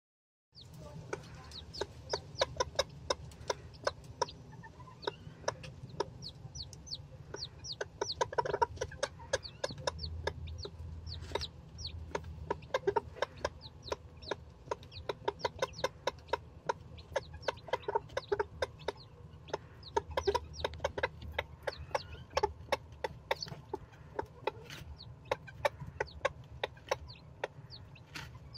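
A brood of one-day-old Silkie chicks peeping continuously in short, high, downward-sliding peeps, with the mother hen's lower clucks mixed in. A steady low hum runs underneath.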